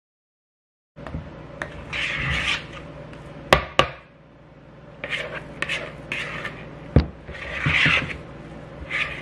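A spatula scraping and stirring thick cream cheese and butter frosting around a plastic mixing bowl, in repeated scraping strokes with a few sharp knocks of the spatula against the bowl. It begins after about a second of silence.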